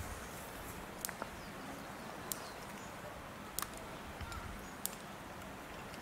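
Outdoor ambience: a steady hiss with a few sharp, very short high clicks about once a second and a faint short bird chirp near the middle.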